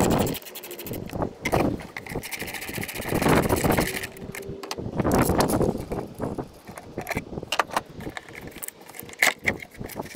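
Hand socket ratchet on a long extension clicking rapidly as bolts are undone, through the first few seconds. Scattered knocks and clatter of tools and engine-bay parts being handled follow.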